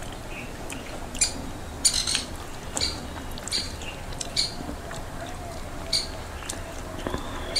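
Wet eating sounds of rice-and-lentil khichuri eaten by hand: scattered lip smacks and chewing clicks, about seven in all, over a low steady background.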